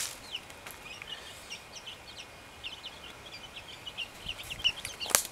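A flock of young chicks peeping, many short high cheeps scattered and overlapping. A sharp knock near the end is the loudest sound.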